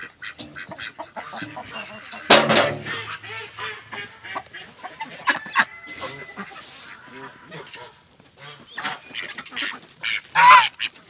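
Domestic geese honking amid a mixed flock of ducks and chickens, with one loud honk about two seconds in and another near the end, and scattered shorter calls between.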